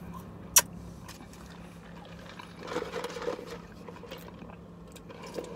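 Soft sucking and slurping as a drink is sipped through a straw from a fountain cup, loudest a little past halfway, after a single sharp click about half a second in. A low steady hum runs underneath.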